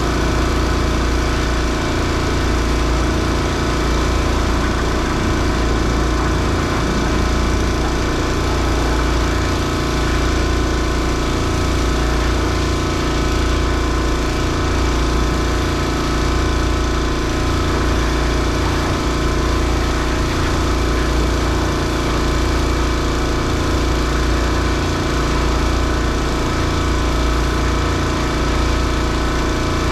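An engine running steadily at a constant speed, its pitch and loudness unchanging.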